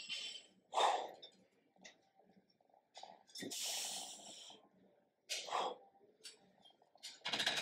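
A man's heavy breaths out through the nose and mouth, about four puffs a second or two apart with a longer one in the middle, drawn out by the effort of a weighted side-lunge adductor stretch with a kettlebell.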